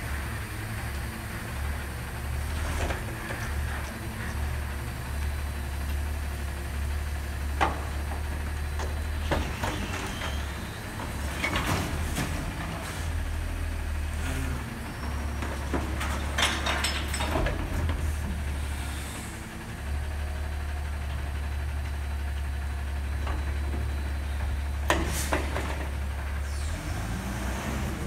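Front-loader garbage truck's diesel engine running steadily at low revs, with scattered clanks, knocks and short air hisses from its working gear several times, the sharpest near the end.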